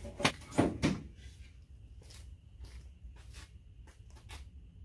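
A hatch lid being set into its frame in an aluminum boat deck, knocking three or four times in the first second, then faint scattered clicks.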